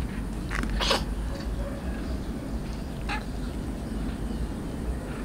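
Street cats on concrete: a few short rustling noises about a second in and near three seconds, with faint kitten mewing, over a steady low rumble.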